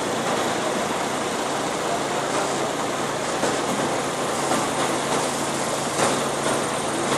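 Steady murmur of a large crowd in an open square, with a constant low hum underneath.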